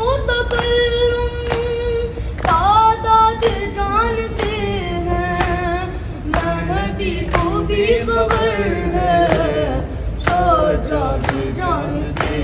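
A boy's high voice chanting a noha (Urdu lament for Imam Husain's family) unaccompanied, in long held and gliding notes. Mourners beat their chests in matam with sharp open-hand strikes, about one a second, in time with the chant.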